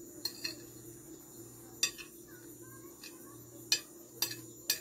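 Metal spoon clinking and scraping against a plate as food is scooped up, with about six sharp, irregular clinks, most of them in the second half.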